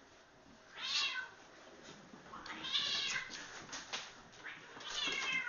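Domestic cat crying out during a fight, three times: a short cry about a second in, a longer one in the middle, and another near the end that falls in pitch.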